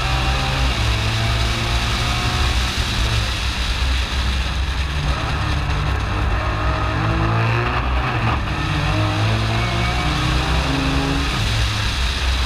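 Stroked 4.1-litre twin-turbo VR38DETT V6 of an R35 Nissan GT-R time-attack car heard onboard at speed, pitch repeatedly climbing and dropping back as it pulls through the revs.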